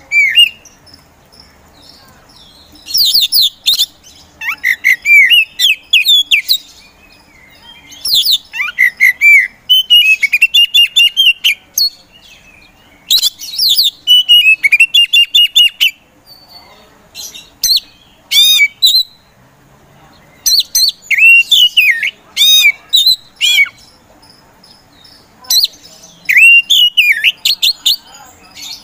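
Oriental magpie-robin (white-bellied 'kacer poci') in full song. It gives loud bursts of clear whistled notes, slurred phrases and rapid trills, each burst a second to a few seconds long, with short pauses between.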